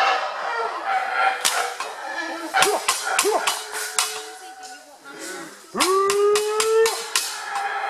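Black howler monkeys calling in repeated bouts of deep, pitched roars, with a loud bout about six seconds in.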